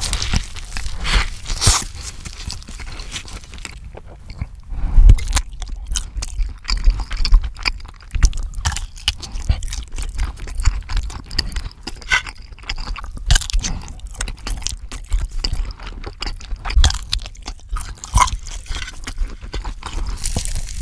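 Close-miked eating sounds: bites into a soft chicken burger and a large smoked sausage, with steady wet chewing and crackling mouth noises and several loud bites along the way.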